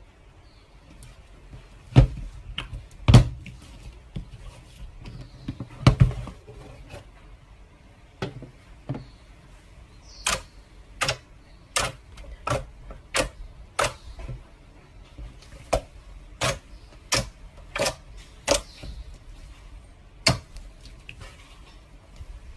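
Slime being squeezed and poked, making sharp popping clicks as air pockets burst. A few loud pops come in the first six seconds, then a steady run of pops follows about ten seconds in.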